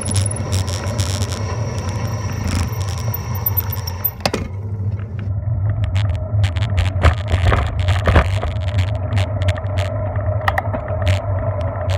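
Bicycle rolling along a paved road: a steady low rumble of wind and road noise on the microphone, with frequent small clicks and rattles over bumps in the pavement. A high hiss cuts out about four seconds in.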